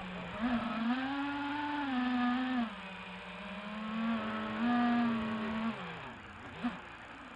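FPV quadcopter's motors and propellers buzzing in flight, the pitch rising and falling with the throttle: up about half a second in, down near the middle, up again, then dropping away about six seconds in.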